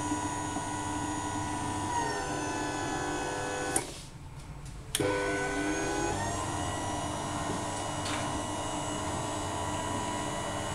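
Boss RD11 roller door opener's electric drive motor running during force setup: a steady whine falls in pitch as the drive slows to a stop with a click about four seconds in. It pauses just over a second, then restarts with a click, rises back to speed and runs steadily as it reverses, driving from the up position back down.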